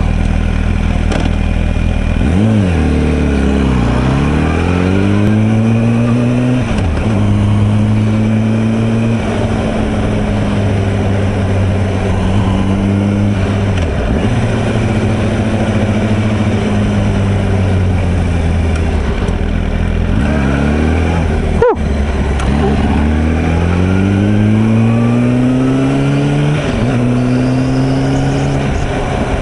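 2007 Yamaha YZF-R1's inline-four engine under way on the road: its pitch rises as it accelerates, drops back at gear changes and holds steady while cruising, over wind and road noise.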